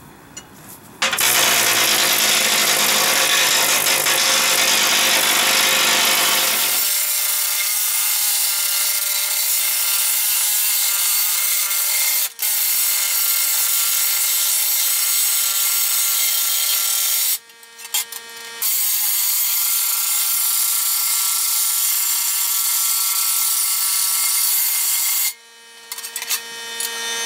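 Pneumatic air chisel fitted with a homemade rounded ball-nose bit, hammering a hammer-finish texture into a quarter-inch steel plate. It starts about a second in and runs steadily, with a brief drop about halfway, a pause of about a second two-thirds of the way through, and stops shortly before the end.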